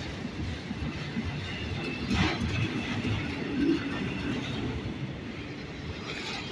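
Freight train rolling on the rails: a steady rumble with faint, thin squeals from the wheels.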